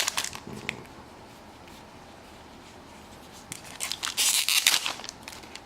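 Foil booster-pack wrapper rustling, then torn open with a burst of crinkling and tearing about three and a half seconds in.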